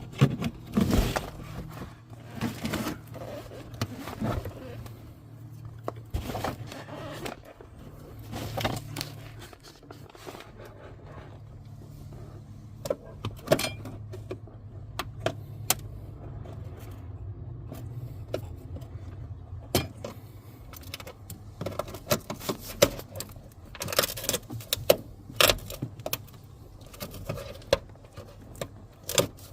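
Hand work on a van interior: scattered clicks, knocks and rattles of parts and tools being handled, over a steady low hum.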